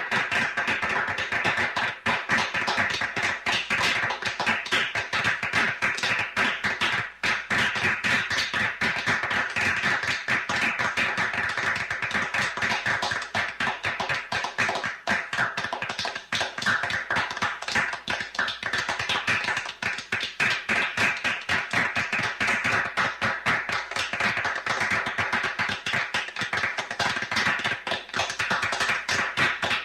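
Small group of about four people clapping steadily, a dense run of sharp hand claps with a slight room echo.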